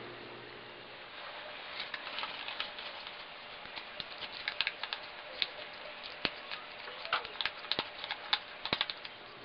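A paper banknote crinkling as it is rolled up between the fingers: an irregular run of sharp little clicks and crackles that starts about a second in.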